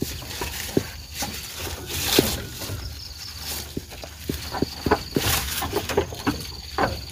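Scattered knocks and rustles from handling and movement, with an insect trilling faintly on and off in the second half.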